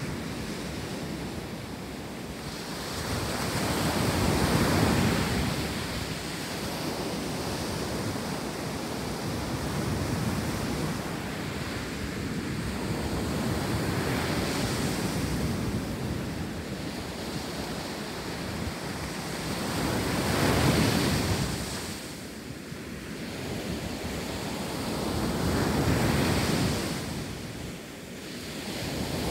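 Ocean surf breaking on a sandy beach, a steady wash that swells and fades as each wave comes in, with a few louder breakers.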